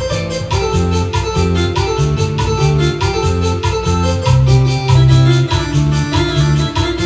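Korg Pa300 arranger keyboard playing a yarita rhythm style: a fast, even percussion beat under a moving bass line and sustained organ-like chords.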